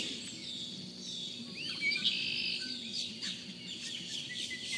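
Birdsong ambience: several small birds chirping and calling over a faint steady background, with a quick run of repeated chirps near the end.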